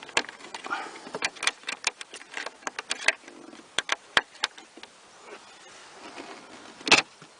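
Rapid, irregular small clicks and taps of hard plastic parts being handled at the car's fuse panel. They thin out after about four and a half seconds, and one sharper click comes near the end.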